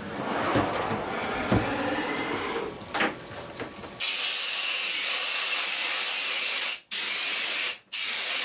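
Coolant splashing and trickling at the CNC mill, then about four seconds in a loud, steady hiss of spray starts suddenly. It breaks off twice for a moment and cuts off near the end.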